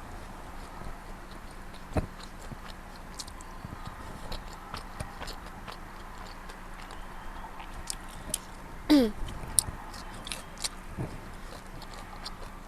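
Close-up eating sounds: chewing and biting food, with many small wet clicks of the mouth. There is a sharp thump about two seconds in and a short falling pitched sound about nine seconds in.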